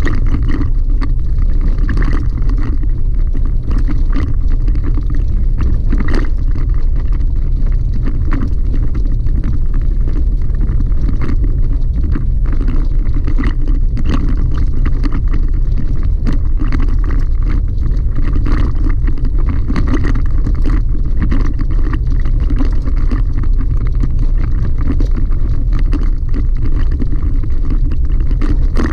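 In-cab road noise of a Chevrolet Colorado ZR2 pickup driving a gravel dirt road: a steady low rumble from the tyres and running gear, with a constant patter of small clicks and rattles.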